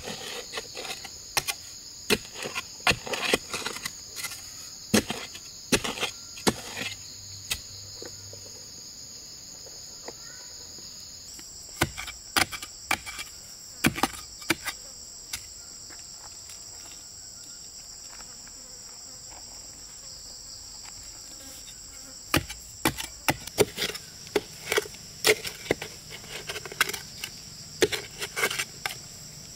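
Steady high-pitched insect chirring, rising slightly in pitch about eleven seconds in, under clusters of sharp wooden knocks from a blade chopping wood. The knocks come in quick runs through the first nine seconds, again briefly around twelve to fifteen seconds, and through the last seven seconds, with only the insects in between.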